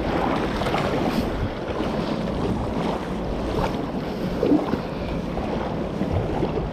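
Wind buffeting the microphone, with water moving around a kayak out on the river.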